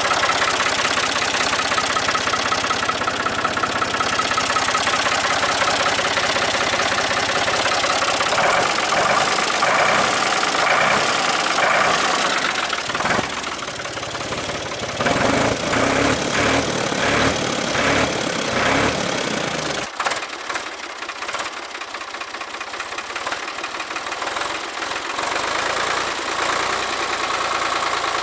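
1966 Ford 4000 tractor's three-cylinder engine running at idle after a cold start, with a knocking clatter. It turns uneven and pulsing through the middle, and its deep part drops away suddenly about twenty seconds in.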